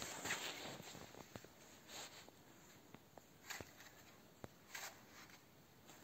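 Faint, slow footsteps crunching in deep snow, with a few light clicks between the steps.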